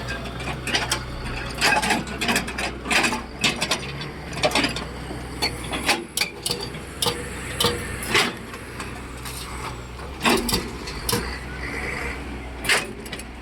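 Heavy diesel earthmoving machinery (wheel loader and excavator) running steadily, with frequent irregular knocks and clanks of rock and metal as material is handled and loaded into a dump truck.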